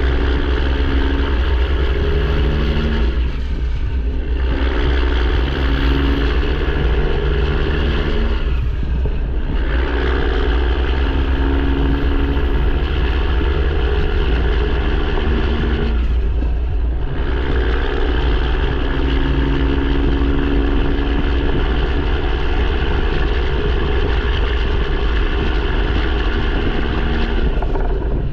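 Straight-piped, emissions-deleted PACCAR MX13 inline-six diesel running loudly under load. The sound dips briefly four times, each gap further apart than the last, as the truck shifts up through the gears.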